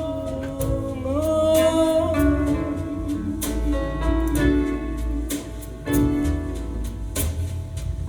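Jazz ballad recording played back over a hi-fi system: a held, slowly gliding melody line over steady bass and soft accompaniment.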